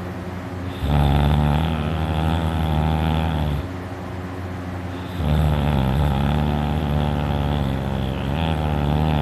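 Loud snoring by a sleeping man: two long snores of steady low pitch, the first about three seconds and the second about four seconds, with a quieter breath between. The snorer puts the sound down to his uvula vibrating.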